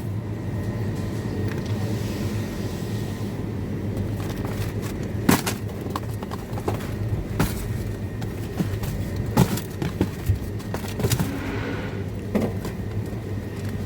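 Steady low hum of a supermarket's frozen-food aisle, with a few scattered sharp clicks and knocks.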